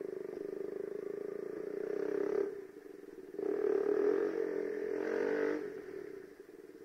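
Sport motorcycle with a loud aftermarket exhaust, ridden: the engine pulls and builds, drops off briefly about two and a half seconds in, then comes back louder with its pitch rising before easing off near the end.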